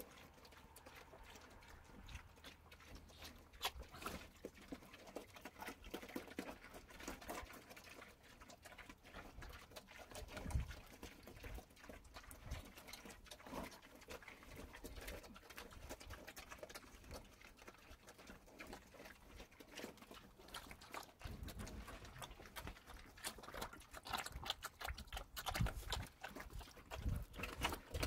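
American Guinea Hog cross piglets feeding on wet grain mash and water from tubs: faint, irregular chewing, smacking and slurping.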